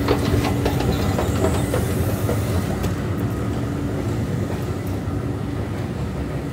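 Escalator running: a rapid, regular clatter of about five clicks a second over a low mechanical rumble and a faint steady hum. The clicks thin out after about two seconds, leaving the rumble slightly quieter.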